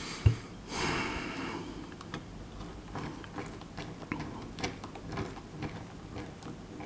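Small precision screwdriver turning the back-casing screws of a Palm M515 handheld, with faint scattered clicks and scrapes as the screws are driven and the device is handled. A dull knock comes just after the start, then a short rasping rub about a second in.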